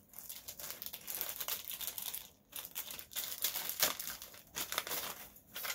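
Thin clear plastic bag crinkling and rustling as it is handled and opened, on and off, with short pauses about two and a half and three seconds in.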